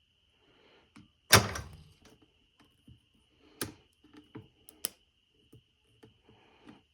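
A metal screwdriver clacking and clicking against the outboard motor's terminals as it is worked in to bypass the ignition and jump the starter: one loud sharp clack about a second and a half in, then scattered lighter clicks and taps.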